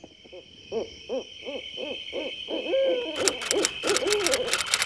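Owl hooting in a quick run of short hoots, about two or three a second, over a steady high tone. About three seconds in, rapid typewriter key clicks start and keep going.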